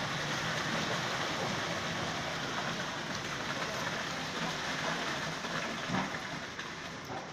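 Concrete mixer truck running while wet concrete is poured from its chute and spread along a road with hoes: a steady rushing noise.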